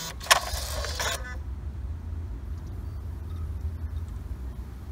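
Alpine six-disc CD changer taking its magazine: a sharp click about a third of a second in, a second of sliding mechanism noise, then faint ticking over a steady low hum as the changer starts cycling through the discs. This cycling without playing is the fault being chased.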